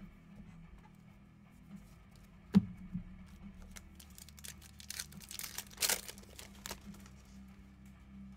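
Trading-card packaging being torn and crinkled while cards are handled. A sharp tap comes about two and a half seconds in, and a burst of crinkling a couple of seconds later.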